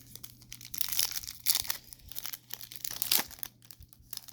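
Foil trading-card pack wrapper being torn open and crinkled by hand, in irregular crackling bursts for a couple of seconds.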